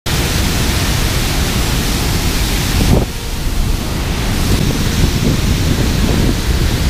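Loud, steady rush of water pouring over a dam spillway into the churning pool below, with a brief knock about three seconds in.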